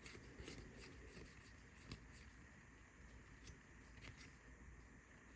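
Faint handling of football trading cards being flipped through by hand: soft rustling with a few light clicks spaced roughly a second apart, over low room hum.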